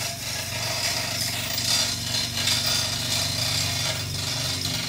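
A motor running steadily, with a harsh rasping noise over it that rises and falls.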